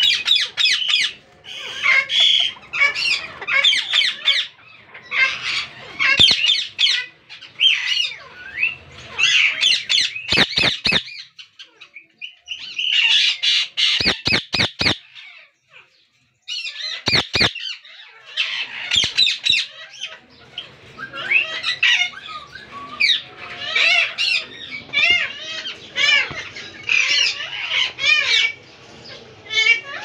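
Indian ringneck parakeets squawking and chirping in rapid, repeated calls. Near the middle the calling thins out into a few sharp clicks with a brief break, then the squawking resumes.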